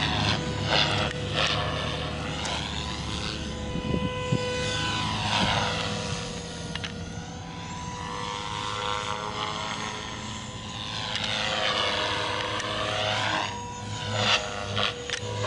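Electric Gaui X3 radio-controlled helicopter flying overhead: a steady high whine from its motor and rotors. The tone sweeps up and down as it moves about the sky, with choppier rotor pulsing near the start and again near the end.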